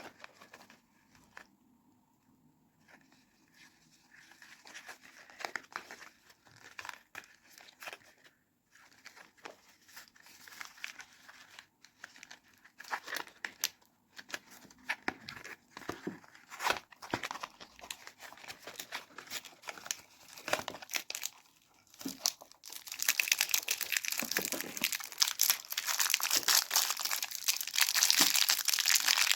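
Soap packaging being unwrapped by hand: scattered crinkles and small ticks at first, then a dense, louder run of crinkling and tearing for the last several seconds.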